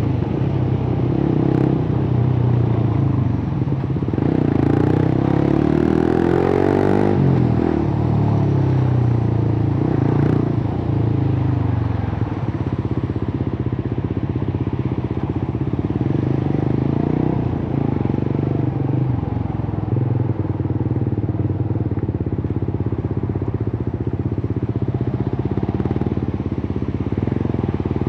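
Suzuki GSX-R150's single-cylinder engine running through a cut-open exhaust while riding. The pitch sweeps up and down for a few seconds about five seconds in, then the engine holds a steady note.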